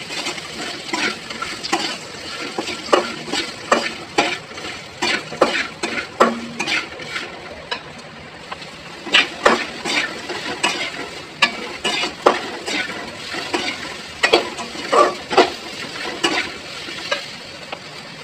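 Chopped onions sizzling in hot oil in a kadai while a spoon stirs them, scraping and knocking against the pan at irregular moments.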